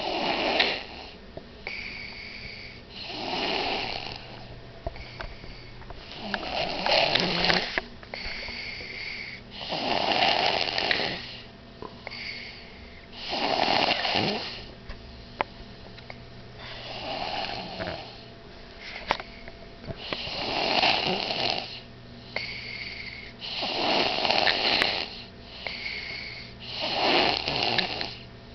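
Loud, steady snoring from someone asleep: a big snore roughly every three and a half seconds, with a softer breath between each.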